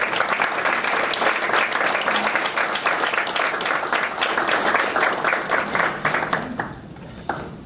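An audience applauding steadily, then fading out near the end with one last stray clap.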